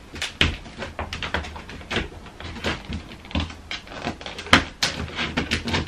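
A plastic storage container's lid being handled and pressed into place in a bed's storage box, with a run of irregular plastic clicks and knocks, the two loudest a little after four and a half seconds in.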